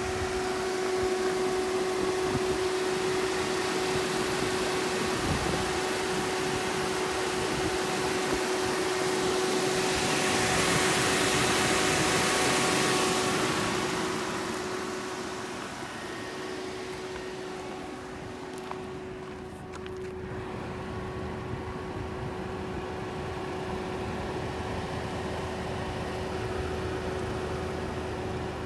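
Nissan Dualis's MR20 2.0-litre four-cylinder petrol engine idling steadily with the bonnet open, a constant hum with a steady tone in it. A louder rushing hiss rises over it for a few seconds midway.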